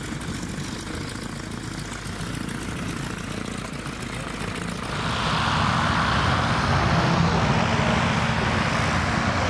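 Propeller aircraft's piston engine running steadily, growing louder about five seconds in.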